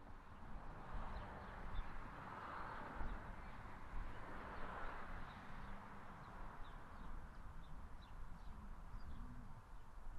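Outdoor ambience: a bird chirping in a series of short, high notes every half second or so, over a steady hiss and a low rumble.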